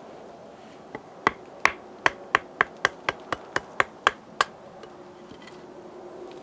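A quick run of about a dozen sharp wooden knocks, roughly three a second: a wooden baton striking the spine of a knife to split firewood.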